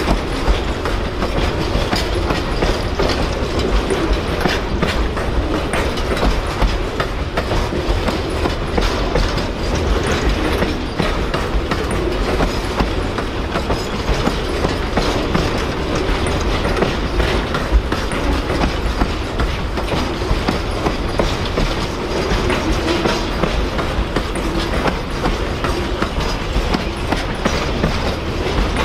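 Amtrak Auto Train autorack cars rolling past: a steady rumble of steel wheels on the rails with a running clickety-clack of many small clicks.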